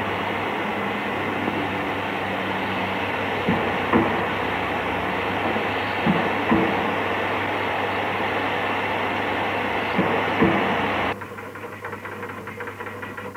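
Steam hissing steadily from a 38 class Pacific steam locomotive standing in steam, with a few sharp metallic knocks. The hiss cuts off suddenly about eleven seconds in.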